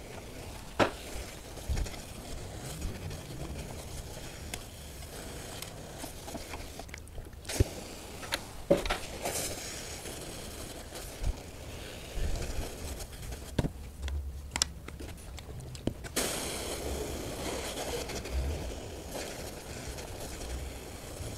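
Hot clothes iron pressed and slid over a wet cloth on wooden strips, steaming the wood to soften it for bending: scattered light knocks and scrapes over a faint steady hiss that grows louder about three-quarters of the way through.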